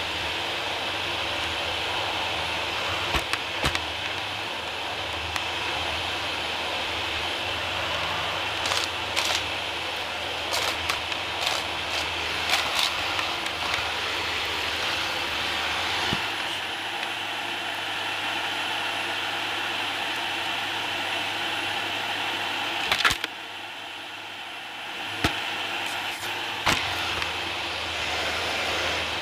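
Dyson cordless stick vacuum running on a laminate floor, a steady motor whine with sharp clicks and crackles of grit and debris being sucked up through the head. Near the end the sound drops for a couple of seconds between clicks, then returns.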